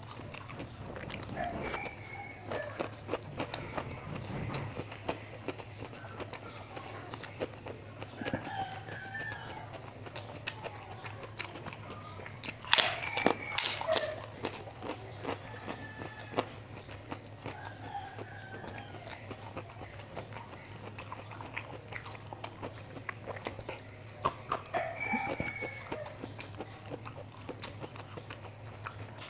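Close-miked eating sounds: rice being chewed, with small mouth clicks throughout and a louder crunchy bite about halfway through. Short chicken calls sound now and then in the background over a steady low hum.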